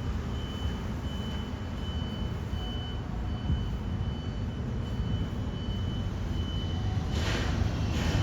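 Cabin noise of a Bombardier Innovia APM 256 rubber-tyred people-mover train under way: a steady low rumble with a thin high whine that fades in and out, and a brief rush of noise near the end.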